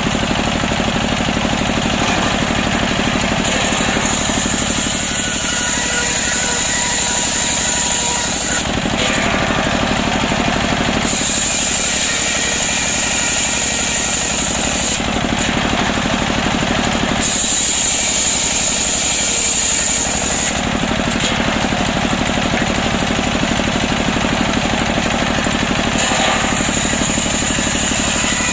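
Table circular saw ripping waru planks, its blade belt-driven by a stationary engine that chugs steadily throughout. A high whine from the cutting comes and goes in several stretches of a few seconds, with short breaks between cuts.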